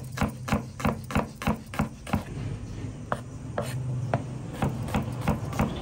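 Kitchen knife chopping on a cutting board in a steady rhythm of about three even strokes a second, over a low steady hum.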